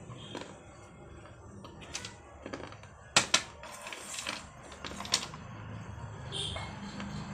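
Baked clay shards clicking and crunching: two sharp clicks a little after three seconds in, then a scatter of lighter clicks over the next two seconds.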